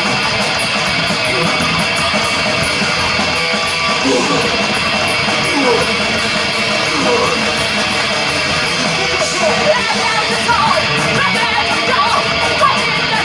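Live heavy metal band playing loud, with electric guitar lines that bend up and down in pitch over a dense, full band sound.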